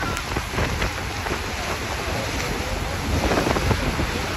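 Steady roar of Niagara's Horseshoe Falls and the churning water at its base, heard up close from a boat, with heavy wind buffeting the microphone.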